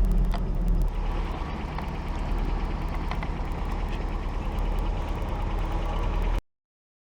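Vehicle engine running low and steady in low-range four-wheel drive while creeping down a steep, slick hill, with a fine rapid ticking over it. The sound cuts off suddenly near the end.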